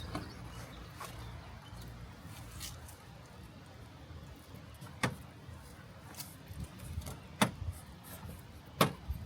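Sharp knocks and clicks of things being handled, three louder ones about five, seven and a half and nine seconds in, over a low steady hum.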